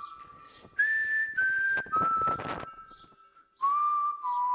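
A whistled tune in clear held notes. The pitch steps up about a second in and then steps back down, with scratchy noise underneath. The whistling breaks off briefly near the three-second mark and then starts again.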